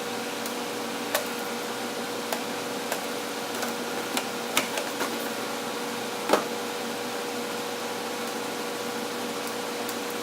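Steady machine hum with a constant tone, with a string of light clicks and knocks over the first half, the loudest about six seconds in.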